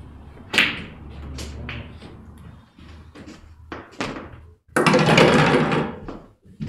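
A snooker cue strikes the cue ball with a sharp click about half a second in, followed by several lighter clicks of snooker balls knocking together and off the cushions. Near five seconds a loud rushing noise lasts about a second and a half.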